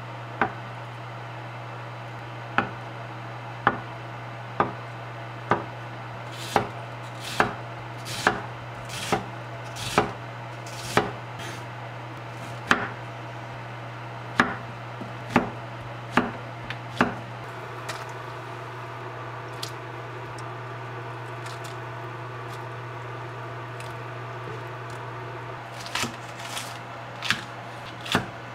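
Kitchen knife chopping on a wooden cutting board, about one sharp chop a second as it cuts through tofu and zucchini. After a pause of several seconds, quicker chops through a green onion start near the end. A low steady hum runs underneath.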